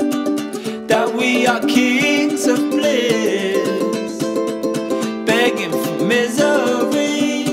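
Background music: a song with a strummed string instrument keeping a steady rhythm, and a singing voice coming in and out in phrases.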